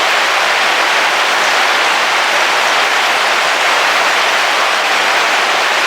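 Heavy rain falling steadily on a car roof, heard from inside the car as an even, unbroken hiss.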